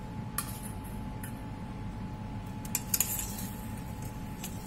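Slotted steel spoon clinking against a stainless steel pot while fried bread gulab jamun are mixed into sugar syrup: a handful of light, sharp metallic clicks, the loudest two close together about three seconds in, over a steady faint hum.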